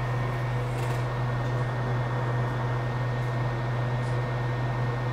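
Steady low electrical hum with an even fan-like hiss: workbench room tone, unchanging throughout.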